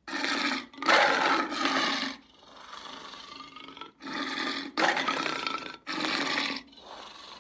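A lion roaring in a run of short roars, about six, each under a second long, with a quieter stretch about halfway through.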